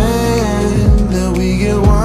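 Pop song with a sung vocal over a steady kick-drum beat.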